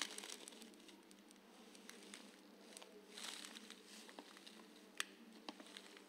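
Near silence: faint rustling and soft clicks of gloved hands working a gel-polish brush on a nail tip, with one sharper tick about five seconds in.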